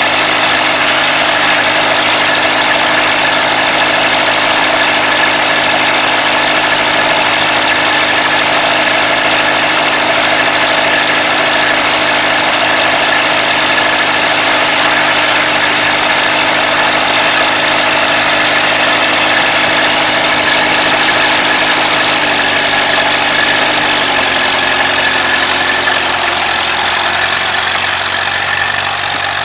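Allis-Chalmers B tractor's four-cylinder gas engine running steadily at a fast idle. Its pitch steps down about two-thirds of the way through as the engine slows, and it grows slightly quieter near the end.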